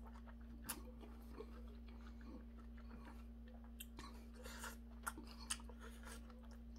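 A person eating noodle soup (seonji-gukbap) from a metal spoon: faint chewing and slurping, with a few short sharp clicks scattered through. A steady low hum runs underneath.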